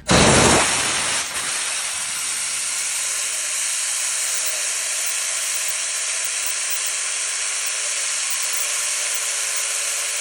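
Hyundai Grand Starex engine running with a loud, steady hiss over a faint wavering drone. The hiss starts abruptly and is loudest in the first second. This is the strange noise the owner reports from the engine.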